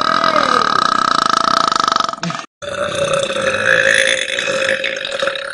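Two long, drawn-out belches by a woman, one after the other with an abrupt cut between them: the first lasts about two seconds, and the second starts just after it and runs about three seconds.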